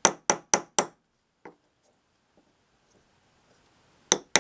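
Light taps of a small ball-peen hammer on a steel pin punch, driving a pin out of an awl's wooden handle: four quick taps in the first second, then two more close together near the end.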